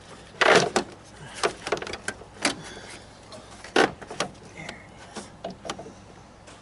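Hard plastic car parts knocking and clicking as hands work them into place in the engine bay, with two louder knocks, about half a second in and near four seconds, and lighter clicks and rattles between.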